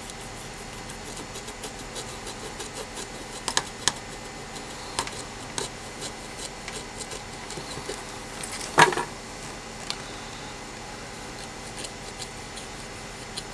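Soldering iron tip scraping and tapping on a circuit board as solder is run along a burnt copper trace: scattered small clicks and scratches over a steady faint hum, with one louder knock about nine seconds in.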